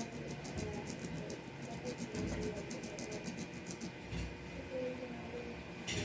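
Small sharpening stone rubbed rapidly back and forth on a steel part of a 1911 pistol's trigger mechanism, about five scraping strokes a second, to level and smooth it. The strokes stop a little past halfway, and a sharp click follows near the end.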